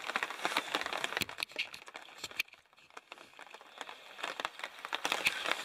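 Rustling and crinkling handling noise: irregular crackly clicks, with a brief lull about two and a half seconds in.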